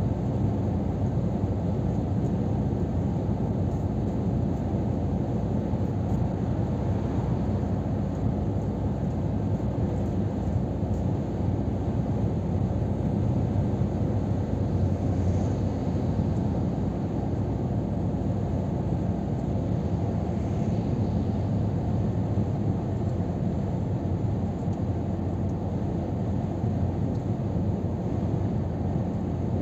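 Steady low rumble of a 2023 Scania R500 truck cruising at motorway speed, heard inside the cab: its 13-litre straight-six engine running under light load, mixed with tyre and road noise.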